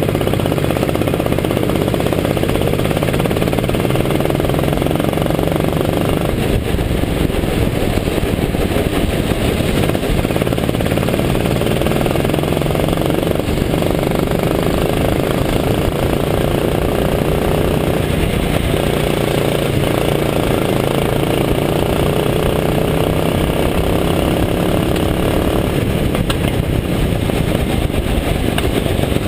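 Go-kart engine running hard through laps, its pitch rising and falling with the throttle and speed through the corners, heard from a camera mounted on the kart.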